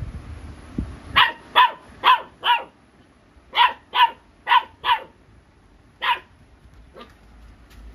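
Golden retriever puppy barking at a toy ball in play: two quick runs of four short, high-pitched barks, then a single bark and a faint last one.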